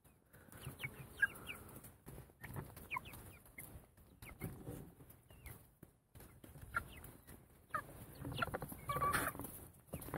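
A flock of Mechelen hens clucking and peeping in short calls while they peck at vegetable slices, with scattered sharp taps from the pecking.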